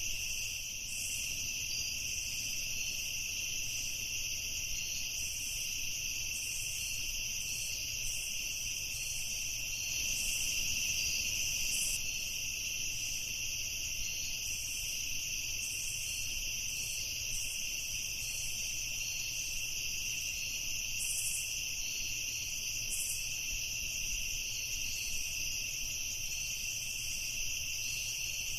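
Night insect chorus: a steady, dense, high-pitched trilling that holds unbroken throughout, with no single call standing out.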